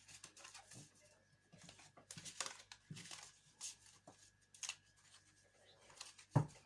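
Tarot cards being gathered and handled on a table: soft rustling and light clicks, with one louder knock near the end.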